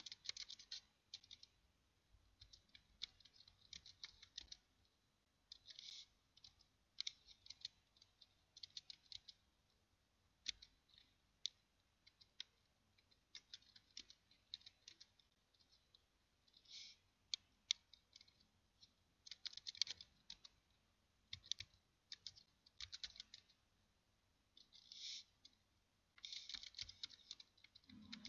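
Faint computer keyboard typing: quick runs of key clicks in short bursts with brief pauses between words.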